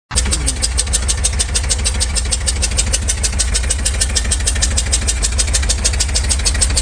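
A loud engine-driven machine running with a fast, even pulsing, about seven beats a second, over a heavy low rumble.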